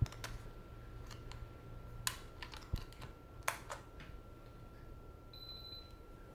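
A few sharp clicks and taps from handling the tower fan's remote control and buttons, followed near the end by a short high beep from the fan's control panel. A faint steady high tone sits under it all.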